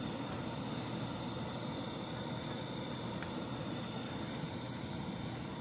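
Steady hiss and rumble of a stove's gas flame under a pot of fish sinigang soup simmering on it.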